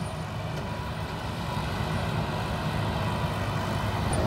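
Tractor engine running with its mounted electrostatic air-blast sprayer working, the sprayer's fan blowing, getting steadily louder as it comes closer.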